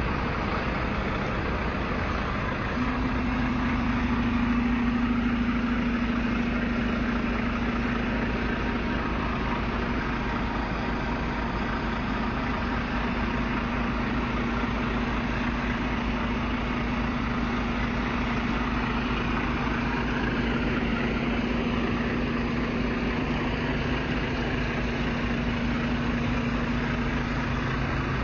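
Semi truck's diesel engine idling steadily, with a steady hum that sets in about three seconds in.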